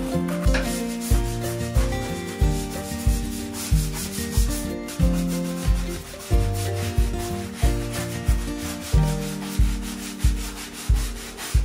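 A stiff-bristled hand scrub brush scrubbing wet, soapy bathroom tiles and toilet in quick back-and-forth strokes, over background music with a steady beat.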